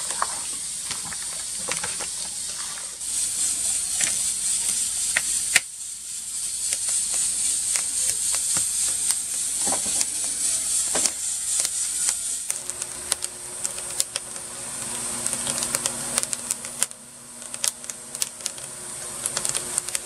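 Kitchen work sounds: utensils and dishes clicking and tapping irregularly over a steady hiss. About two-thirds of the way through a low steady hum comes in.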